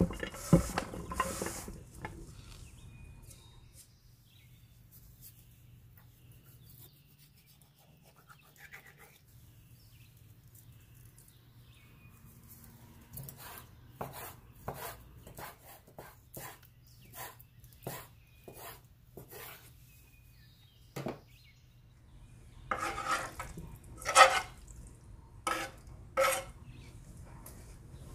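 Kitchen knife slicing raw chicken breast on a bamboo cutting board: a steady series of short cuts against the board, a little under two a second, after a quieter stretch. Near the end come louder knocks and rustles as food is handled.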